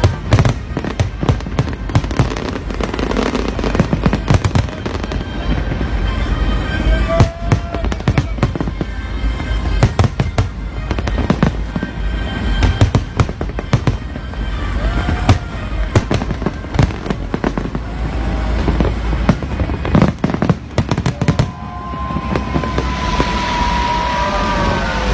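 An aerial fireworks display: a fast, loud barrage of bangs and crackles with music playing underneath. Near the end the bangs thin out into a steady hiss with short sliding tones.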